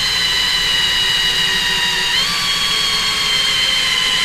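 Electric drill running steadily with a 7/8 inch hole saw cutting through a plastic car bumper fascia. The motor's whine rises slightly in pitch about two seconds in, then settles again.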